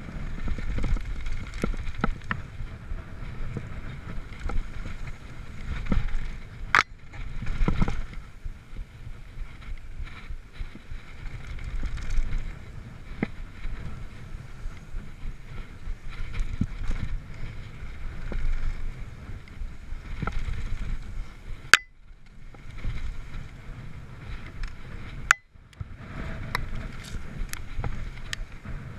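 Mountain bike riding fast down a dirt trail, heard from a camera on the bike: wind on the microphone and steady tyre rumble, with frequent clicks and rattles from the bike. A few sharp knocks stand out, one about seven seconds in and two more near the end.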